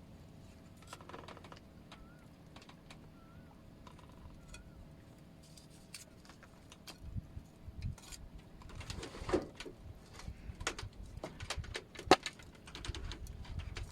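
A few faint bird chirps, then a run of scattered clicks and knocks from things being handled. The sharpest knock comes about twelve seconds in.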